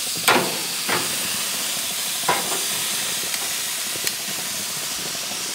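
Ham steaks sizzling on a very hot infrared gas grill: a steady hiss, broken by a few light knocks as a steak is moved on the grate.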